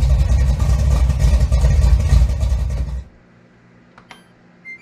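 A loud, rough mechanical rumble cuts off suddenly about three seconds in. A single click follows, then near the end the first short, high beep of a GE dishwasher's alert as it fails to start, a fault the host traces to the door's strike sitting just below the latch so it doesn't catch.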